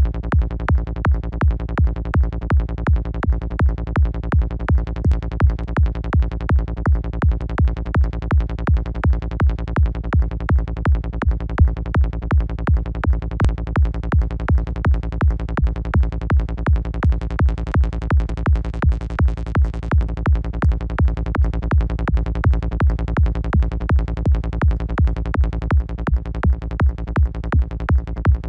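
Psytrance kick and rolling bass loop in A sharp from the KickNBassGel software synth: a punchy kick about two and a half times a second with distorted bass notes filling the gaps between kicks. Near the end the gaps between the kicks fill in and the kicks stand out less.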